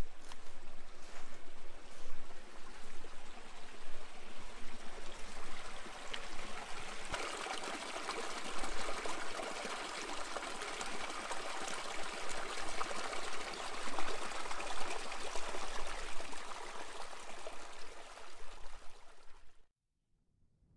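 Small stream trickling and splashing over rocks, a steady rush of running water that grows fuller about seven seconds in and cuts off suddenly near the end.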